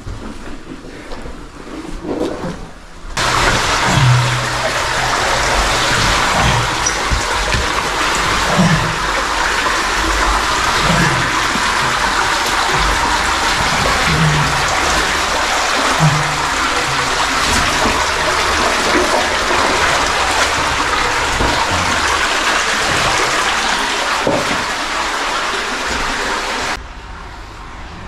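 Loud rush of a cave stream pouring and splashing over rocks. It starts suddenly about three seconds in and cuts off suddenly near the end.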